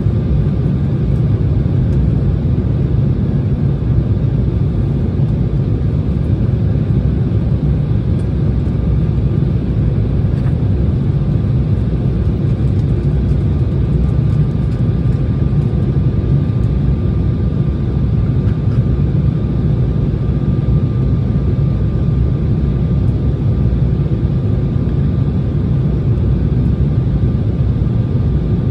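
Steady cabin noise of an Embraer E170 jet airliner in cruise: a low, even rumble of airflow and its turbofan engines. A faint, thin, steady whine comes in about nine seconds in.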